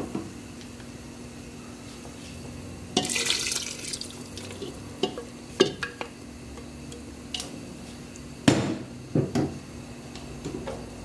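Water poured into an aluminium pressure cooker full of blended tomato sauce, a splashing pour about three seconds in lasting about a second. Several clinks and knocks of a wooden spoon and plastic container against the pot follow, the loudest about eight and a half seconds in.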